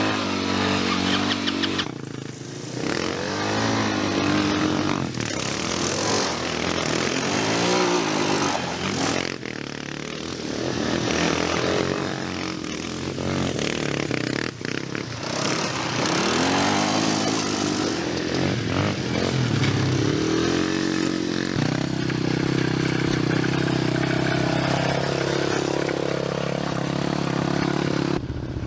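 Small ATV engines revving up and down again and again, the pitch climbing and dropping with each burst of throttle. In the last several seconds the engine holds a steadier drone.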